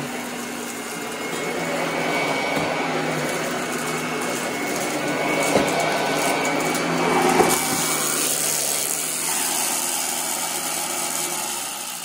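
Royal Commercial 18-inch upright vacuum running over carpet and sucking up scattered debris, with a few sharp clacks as pieces go through; the loudest comes about seven and a half seconds in. The sound drops somewhat near the end.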